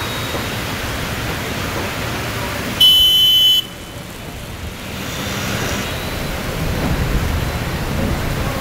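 Steady rush of rain and road noise on a flooded street, broken about three seconds in by a loud vehicle horn blast lasting under a second. A low rumble builds near the end as vehicles move through the water.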